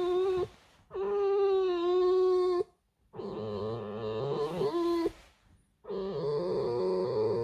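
Pet fox making a long, high, whining squeal over and over, about four calls with short breaks between them. This is the warning 'creak' she gives when a person is too close to her resting spot.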